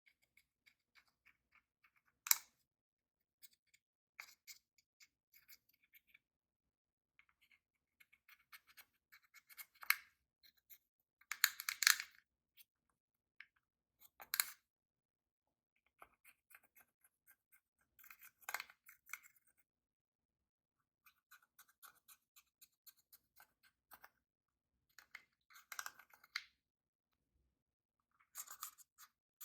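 Slime being kneaded and stretched by hand, giving sticky clicks and crackles in short spells, loudest about twelve seconds in.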